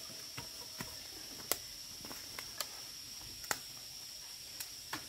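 Insects, likely crickets, trilling steadily on one high note, with about seven scattered sharp clicks, the loudest about one and a half and three and a half seconds in.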